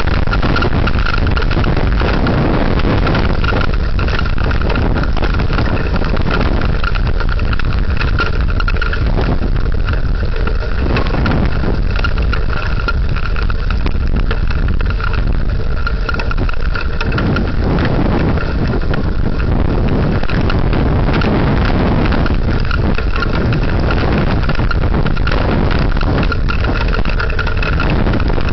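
Heavy rain falling in a desert microburst thunderstorm, with very strong wind gusting against the microphone in a steady low rumble. A faint steady high tone runs through it.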